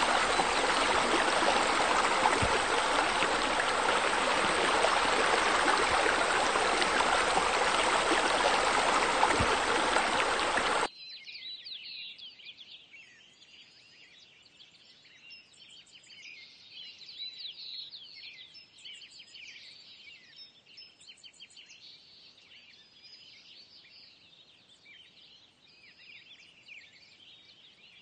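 Steady rush of flowing, spilling water that cuts off abruptly about eleven seconds in. After that there is faint, busy chirping of birds.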